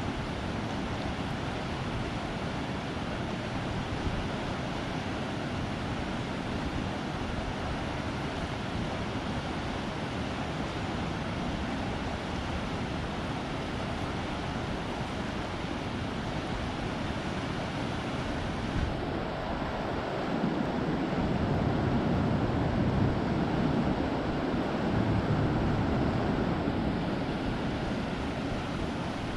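The Truckee River rushing, a steady roar of flowing water. It swells louder in its lower range for several seconds about two-thirds of the way in.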